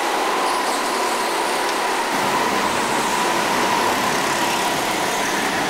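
Go-karts running laps on an indoor track, heard as a steady noisy drone with a faint continuous whine.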